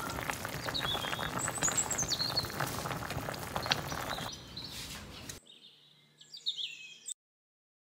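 A pot of vegetable soup bubbling at a simmer, with a crackle of small pops, over which come a few short high chirps. The sound drops away about four seconds in and cuts off to silence about seven seconds in.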